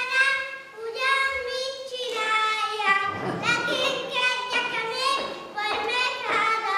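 A child's high voice singing, with notes held steady for up to about a second at a time.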